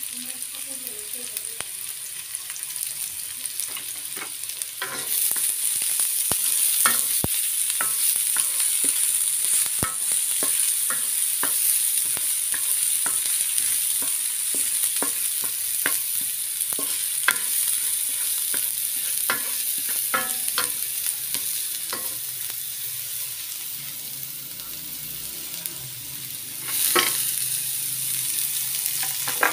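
Chopped onion frying in hot oil in a nonstick wok, a steady sizzle that grows louder about five seconds in, with frequent light clicks and scrapes of a wooden spatula stirring against the pan. Near the end the sizzle surges briefly as diced hotdog goes into the pan.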